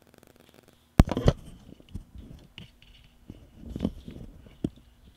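Close microphone handling noise: a sharp click about a second in, then scraping and rustling with a few bumps as the mic is moved.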